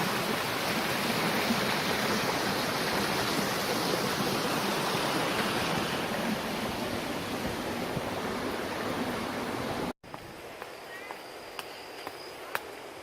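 Waterfall: steady rushing water. About ten seconds in it cuts off abruptly, leaving a much quieter background with a few sharp clicks.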